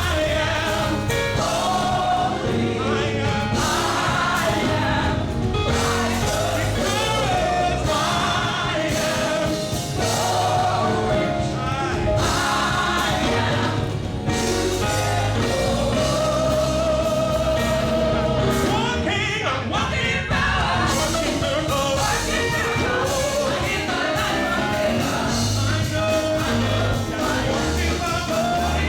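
Gospel music: a group of voices singing over a band with bass and drums.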